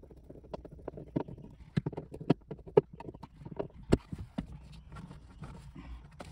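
Irregular sharp clicks and knocks from a car sun visor being screwed to the roof and its plastic mount being handled, with the loudest knock about four seconds in.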